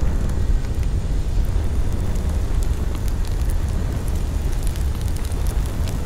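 Steady low rumble of wind buffeting an outdoor microphone, with faint scattered crackles.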